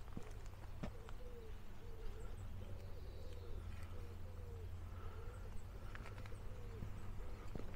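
A pigeon cooing: a long run of low, soft coo notes repeated one after another, with a few faint higher bird chirps and occasional clicks behind it.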